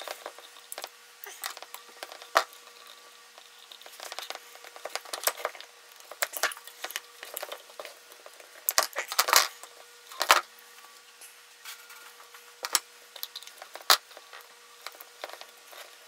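Plastic cable ties being worked around electrical cords by hand: scattered clicks, rustles and short scrapes, with a couple of louder rasping pulls around the middle.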